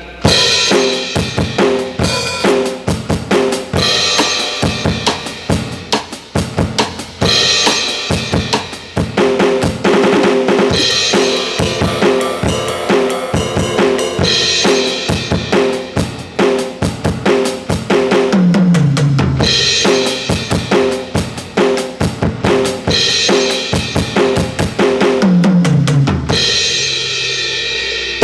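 Aroma TDX15S electronic drum kit played on its metal kit preset: a fast, steady kick-and-snare groove with cymbal crashes every few seconds, and two tom fills running down from high to low toms in the second half.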